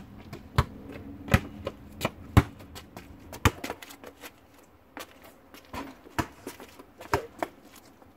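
Basketball dribbled on an asphalt driveway: a string of sharp bounces, about one to two a second, loudest in the first few seconds and fainter after.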